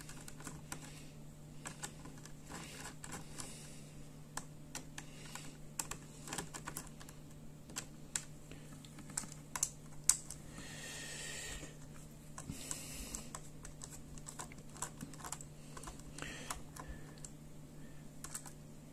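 Small screwdriver working screws out of a laptop's plastic palm rest: scattered light clicks and ticks of the metal tip and screws, over a faint steady hum.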